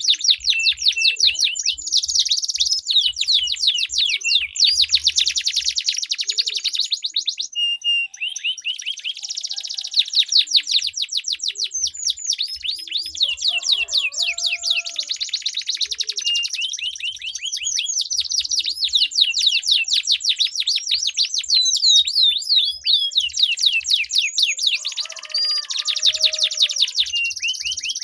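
Domestic canaries singing in long, rapid rolling trills of quickly repeated, sweeping high notes, with only brief breaks. Lower warbled phrases come in twice.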